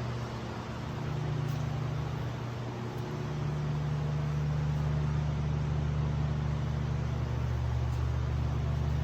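Steady low mechanical hum with a noisy hiss above it; its pitch steps up slightly about three seconds in.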